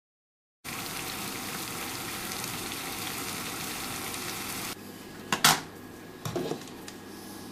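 Water at a rolling boil in a saucepan, a steady bubbling hiss that cuts off suddenly about four seconds in. A few sharp clatters of kitchenware against the pan follow, the loudest about a second after the boiling stops.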